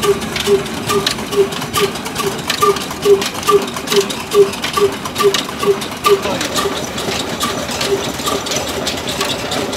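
Old Ruston Hornsby diesel engine running steadily under load, driving a stone flour mill (chakki) grinding wheat, with an even beat a little over twice a second and a patter of clicks from the mill.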